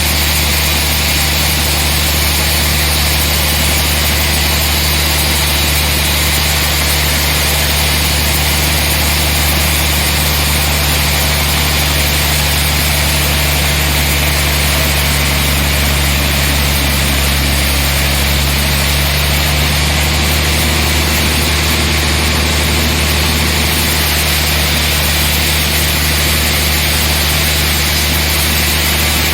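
Sawmill machinery running steadily: a constant engine drone with a hiss above it, swelling a little about halfway through.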